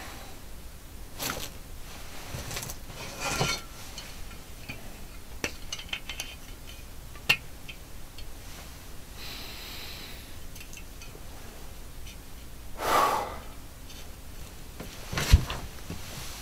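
Someone rummaging through papers, cloth and small objects by hand: rustling, a few sharp clicks and clinks, a louder swish about thirteen seconds in, and a heavy knock near the end.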